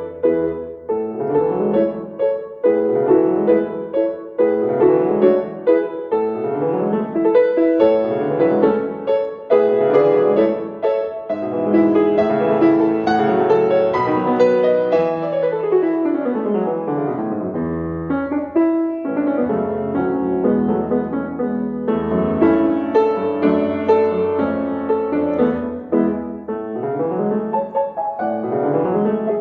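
Instrumental solo piano music with repeating rising broken chords in the low notes and, about halfway through, a long downward run.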